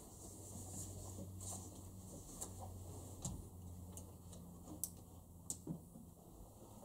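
Quiet room tone: a low steady hum with a few faint scattered clicks and taps, the sharpest about three and five seconds in.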